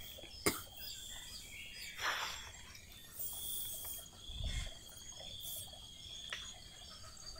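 Outdoor ambience with a steady, high insect trill that stops and starts, and faint rustling and a few soft knocks and thumps from someone walking through plants and handling a plastic bucket.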